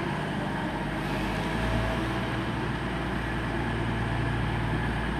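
CrossCountry Class 220 Voyager diesel train, its underfloor diesel engines running with a steady low hum that grows louder about a second and a half in.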